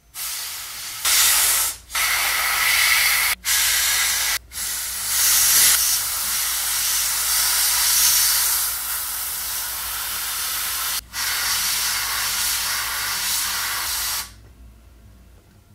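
Compressed air hissing from an air-compressor blowgun aimed at a 3D printer's nozzle, blowing on the freshly laid plastic for extra part cooling. The hiss cuts out briefly four times and stops near the end.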